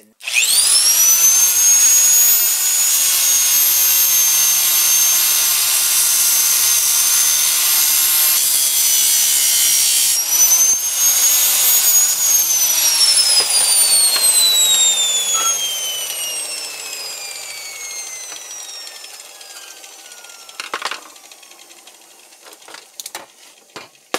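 Angle grinder with a cutoff wheel spinning up to a high whine and cutting through the welds on a microwave oven transformer's steel frame for about twelve seconds, then switched off and winding down, its whine falling slowly over the next ten seconds. A few sharp handling knocks near the end.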